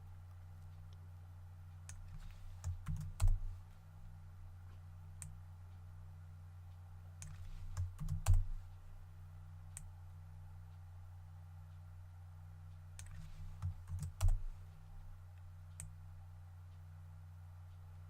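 Computer keyboard keystrokes and mouse clicks in three short clusters about five seconds apart, the presses of the Shift+D duplicate shortcut as cubes are copied and placed. A steady low hum runs underneath.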